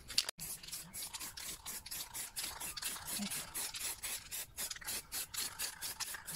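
Aerosol spray can of clear lacquer hissing in quick, evenly repeated short bursts, about four a second.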